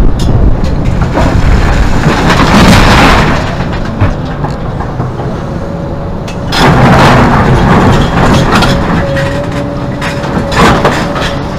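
Hidromek 390 excavator's six-cylinder Isuzu diesel and hydraulics under load, with a faint steady whine. A couple of seconds in comes a long rattling crash as a bucketload of broken rock is dumped into a dump truck. About halfway through, the bucket digs into a rock pile with a second long stretch of crunching and grinding stone.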